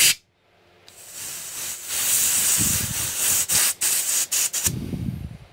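Compressed air from an air-compressor blowgun hissing through a blocked lawnmower carburettor slow idle jet to force the dirt out. The hiss builds about a second in, runs in blasts with several brief breaks, and stops near the end.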